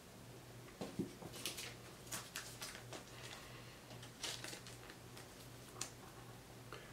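Faint rustling and light clicks of trading cards being handled and turned in the fingers, several soft touches spread through, over a low steady hum.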